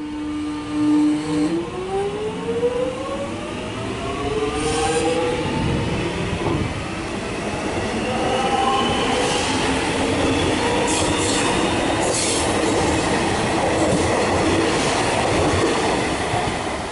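Electric suburban train pulling away from the platform. The traction motor whine holds one pitch, then rises steadily from about a second and a half in as the train accelerates. Underneath is a growing rumble of wheels on rail, with a few sharp clacks as the wheels cross rail joints.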